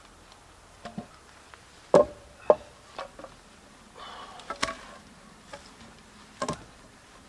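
Split wooden boards knocking against each other and the ground as they are handled and set down: a series of sharp wooden clacks, the loudest two close together about two seconds in, with brief rustling in the middle.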